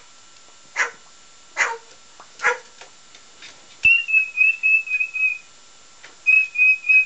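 Pet little corella imitating a dog's bark: three short barks, each falling in pitch, about a second apart. Then two runs of high, quickly pulsing whistle-like notes.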